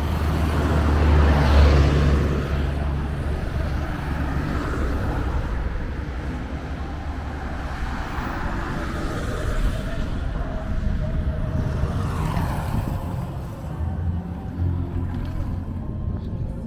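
Road traffic: a motorcycle passes close by, loudest about two seconds in, and other vehicles pass later over a steady low rumble.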